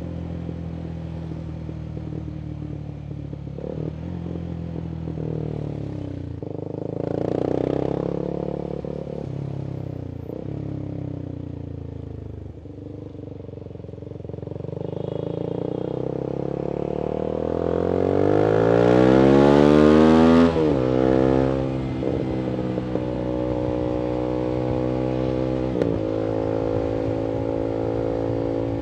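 Voge 300AC single-cylinder motorcycle engine, reflashed for more fuel and breathing through opened-up intake and a free-flowing full-system exhaust, running under way. A brief rise in revs about seven seconds in, then a long climb in revs, loudest about two-thirds through, that drops off suddenly before settling back to steady running.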